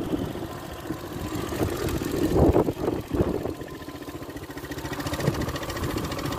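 250cc ATV engine idling steadily, with a couple of louder knocks about two and a half seconds in.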